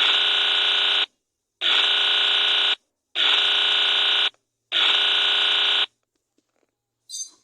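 Emergency alert buzzer tone sounding four times, each harsh buzz about a second long with half-second gaps, as the attention signal of a mock emergency broadcast. A short faint high blip follows near the end.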